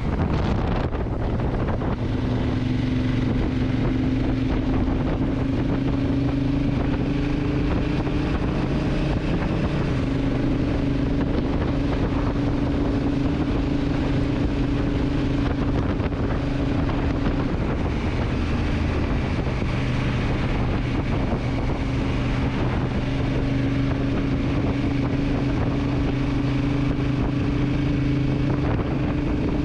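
Honda CRF1000L Africa Twin's parallel-twin engine running steadily while riding at cruising speed, its pitch shifting slightly a few times, with wind rushing over the microphone.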